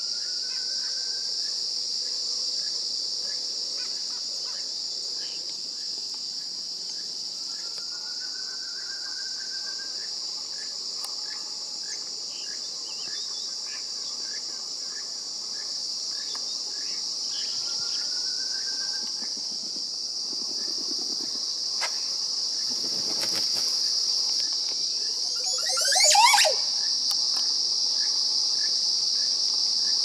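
Montezuma oropendola giving its weird warbling song once near the end, a loud sweep rising in pitch, over a steady high-pitched insect drone. Slow rising whistles come a few times earlier.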